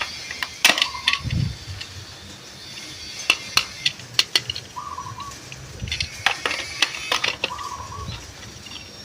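Hard plastic clicks and knocks of toy cars and playset pieces being handled and set down, in uneven clusters. A short warbling chirp sounds three times.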